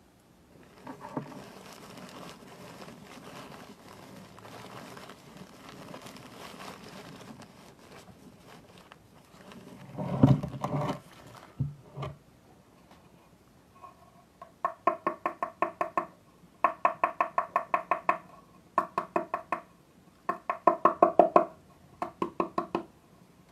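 Black salt mix of sea salt, pepper, ashes and charcoal being stirred in a hard container: a gritty scraping of grains for about ten seconds, a single loud knock, then several bursts of rapid ringing clinks against the vessel's sides over the last third.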